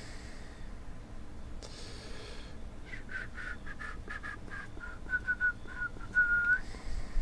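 A person whistling a short run of quick notes, ending on a longer held note, over the light clicks and slides of trading cards being sorted by hand.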